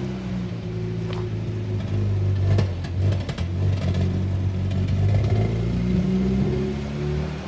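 Old Series Land Rover engine running, rising in revs a couple of seconds in and dipping again, with some clatter around the third second. The engine has stood unused for six years.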